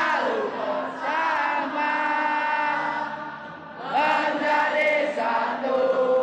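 Football crowd singing a supporters' chant in unison, in drawn-out sung phrases, with a new phrase starting about a second in and another about four seconds in.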